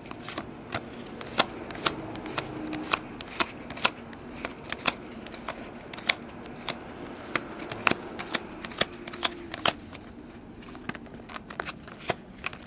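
Trading cards being flipped and slid off a stack one after another, each card giving a sharp flick or snap at an uneven pace of a few a second.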